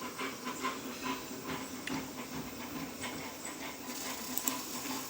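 CraftBot 3D printer running: a steady motor hum with rapid faint ticking, about five or six ticks a second.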